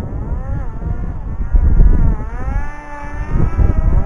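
Electric motors and propellers of a hobby drone whining, their pitch wavering up and down, with loud gusts of wind buffeting the microphone, strongest a little under halfway through.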